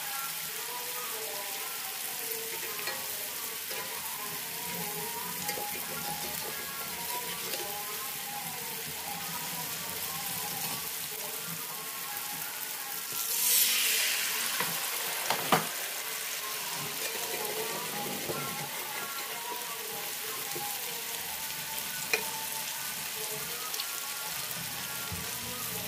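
Peyek batter (mung beans in thin rice-flour batter) sizzling as it deep-fries in a wok of hot oil, a steady hiss. About halfway through the sizzling surges louder for a second or two, followed by a sharp knock and another near the end.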